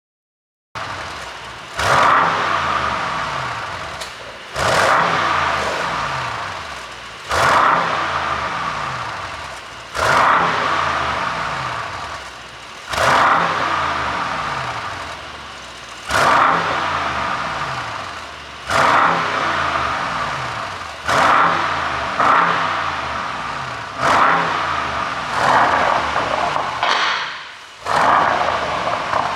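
Mercedes-AMG S63's twin-turbo V8 through a Brabus exhaust, revved in about ten sharp blips roughly every two and a half to three seconds, the revs falling back after each one.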